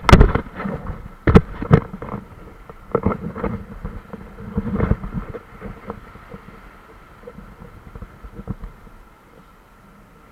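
Whitewater splashing and slapping against an inflatable packraft running a small drop, with sharp knocks and thumps through the first five seconds, then calmer moving water that fades near the end.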